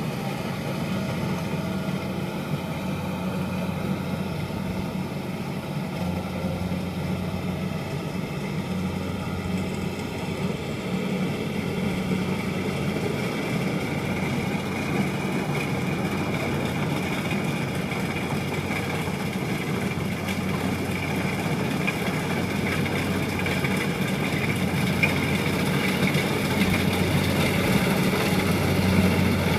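Kubota DC70 combine harvester's diesel engine running steadily with a constant low hum and a fainter high whine. It grows louder over the last few seconds as the machine comes closer.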